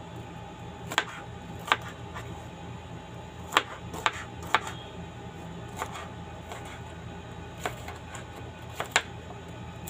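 Kitchen knife tapping on a plastic cutting board while dicing cucumber: about eight sharp, irregular taps, one every second or so, over a steady low hum.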